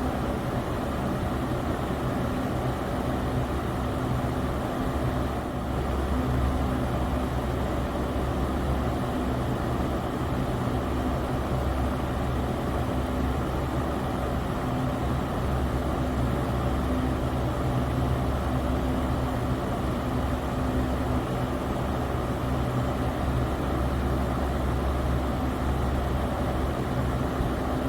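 Electric fan running steadily: an even whoosh of moving air over a low, steady motor hum.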